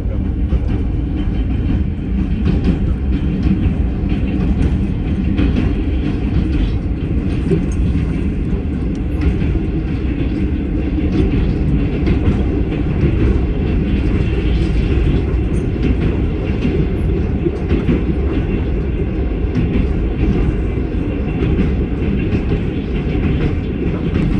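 Train heard from on board as it crosses a steel truss bridge: a loud, steady running rumble of the carriage on the rails.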